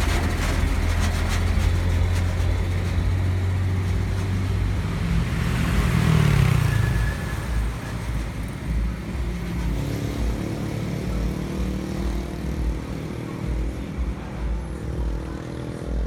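A motor vehicle's engine running steadily, then revving up briefly about five to seven seconds in before dropping back to an uneven, lower rumble.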